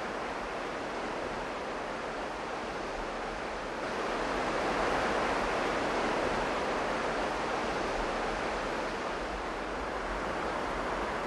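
Steady rushing of river water, which gets louder about four seconds in as it becomes water spilling over a low weir.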